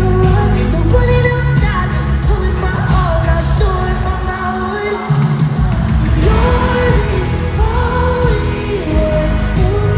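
Live pop music played loud over an arena sound system: a female singer's vocal melody over a heavy bass beat, with the bass dropping out briefly about halfway through.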